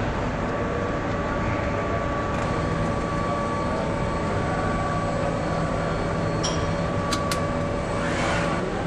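Steady mechanical hum and noise of production-line machinery on an electric-motor assembly floor, with a few constant tones in it and a couple of brief high clicks about two-thirds of the way through.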